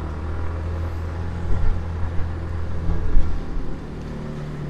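Motorcycle engine running steadily while riding, a low hum under a rush of wind and road noise on wet asphalt; the level dips a little near the end.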